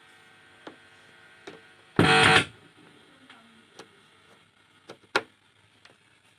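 Scattered sharp clicks of keys or buttons being pressed on a Roland EX-20 keyboard that gives no sound, with one loud burst of noise lasting about half a second, about two seconds in.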